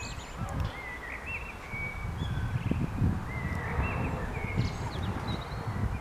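Birds chirping in many short whistled calls, over a low, uneven rumble.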